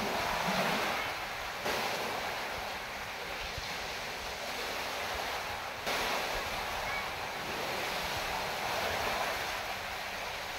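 Sea waves washing on a rocky shore: a steady rush of surf.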